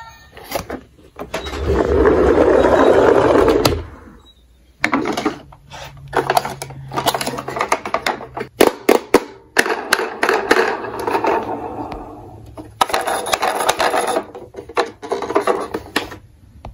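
Plastic toy ambulances handled over a cardboard box: a loud rustling scrape for about two seconds near the start, then a long run of clicks, taps, rattles and scrapes of plastic.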